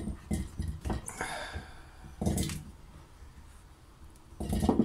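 Cornelian cherries dropped by hand into an empty glass jar, knocking against the glass at irregular intervals, with a louder knock about two and a half seconds in and a quick cluster near the end.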